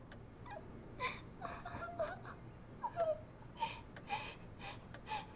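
A woman sobbing and whimpering quietly in short, broken cries.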